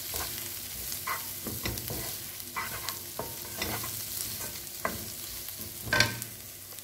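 Sliced onions sizzling in oil in a non-stick frying pan while a wooden spatula stirs them, scraping across the pan in irregular strokes about once a second, the loudest about six seconds in.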